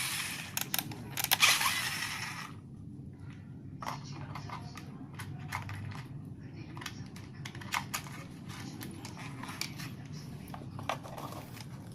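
Handling noise while an RC car and its remote control are switched on: a rustle in the first two seconds, then scattered small clicks.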